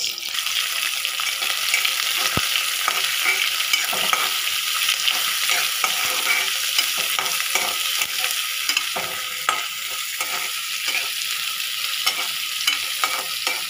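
Chopped onion frying in hot oil in a kadhai, sizzling steadily, while a steel spatula stirs it. The spatula scrapes and taps against the pan many times, most often in the second half.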